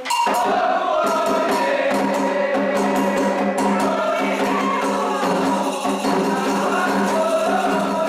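Candomblé song for Ogum: a group of voices comes in together at once, answering the lead singer in a steady chant over ritual percussion with sharp, bright strikes.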